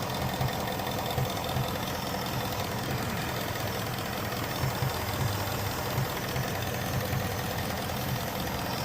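Ford Mustang GT's 5.0 Coyote V8 idling steadily. The engine has a misfire on cylinder 2 (codes P0302 and P0316).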